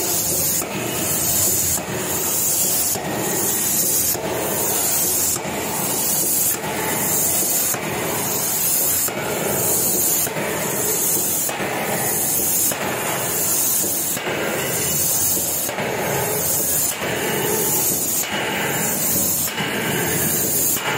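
3-ton electro-hydraulic forging hammer striking a red-hot workpiece over and over, about one blow a second, each stroke followed by a burst of hissing.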